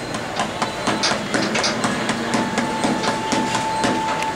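Boxing-gloved punches landing on a man's abdomen in a rapid series of thuds, about four a second.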